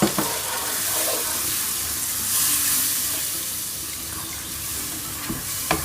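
Ground spice masala hissing and sizzling in hot oil in a frying pan, just after a splash of water was added to keep the spices from burning; the hiss swells around the middle. A few sharp utensil knocks against the pan, at the start and near the end.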